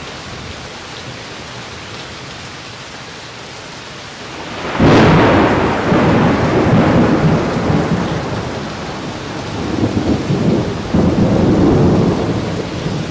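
Steady rain falling, then about five seconds in a sudden crack of thunder that rolls on as a rumble, swelling again near the end.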